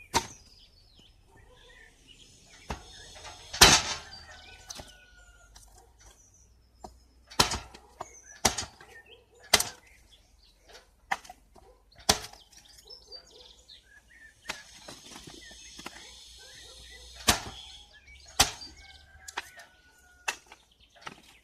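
Homemade spring-loaded lever wood splitter: its blade chops small blocks of wood into kindling, about a dozen sharp knocks at uneven intervals, loudest about four seconds in, mixed with split pieces clattering onto the pile. Birds chirp faintly in the background.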